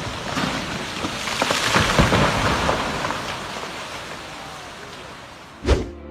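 Heavy rain with rumbling thunder, swelling about two seconds in and then easing, and a single sharp, loud crack near the end.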